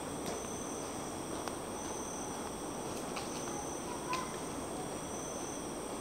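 Insects calling steadily in a high, continuous drone, with a second high call that swells about every second and a half. Beneath them is an even low hum of distant highway traffic, with a few faint ticks, the largest about four seconds in.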